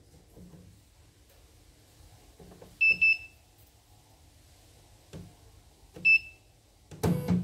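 A CNY E900 portable computerized embroidery machine's control panel beeps as its buttons are pressed: a quick high double beep, then a single beep a few seconds later, with faint taps between them. The panel still answers key presses with beeps though its screen shows no image. A louder burst of clattering noise comes near the end.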